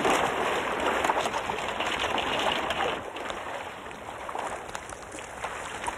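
Water splashing and sloshing as divers in drysuits push through cold reservoir water and broken thin ice. It is loudest for about the first three seconds, then settles to quieter lapping with a few small knocks.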